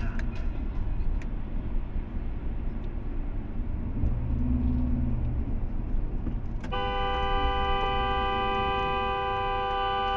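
Road and tyre noise of a car driving at speed. About seven seconds in, a car horn starts and is held as one long, steady blast.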